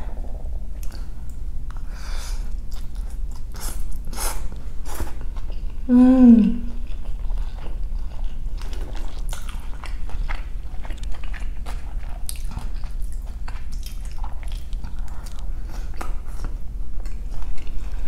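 Close-miked chewing and mouth sounds of someone eating soft chicken pad thai rice noodles, full of small wet clicks. About six seconds in comes a short hum that falls in pitch.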